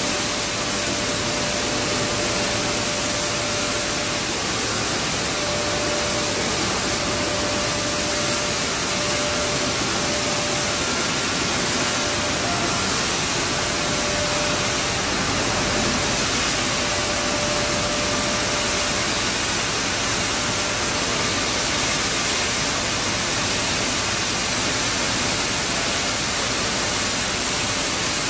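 Steady, even rushing noise of stone flour mill plant machinery running, with a faint steady whine that fades in and out.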